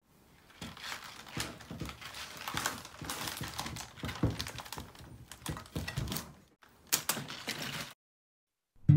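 Tulip stems and leaves rustling, with small irregular knocks and clicks, as a bunch of tulips is lifted out of a glass vase. The handling noise stops shortly before the end, and acoustic guitar music comes in.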